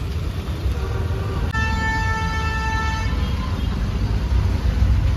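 Road vehicle rumble with a vehicle horn honking once, a steady blast of about a second and a half starting about a second and a half in.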